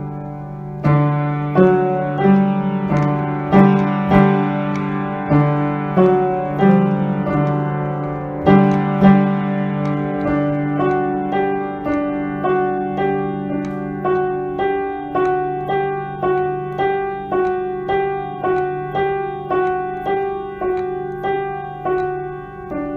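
Background piano music: a gentle melody of struck notes that ring and fade, settling into an even pulse of about two notes a second in the second half.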